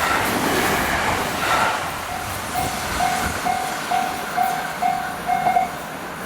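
A JR Hanwa Line train passing the level crossing at speed, its rolling noise fading. Over it the crossing's warning bell rings about twice a second, eight strikes or so, then stops shortly before the end.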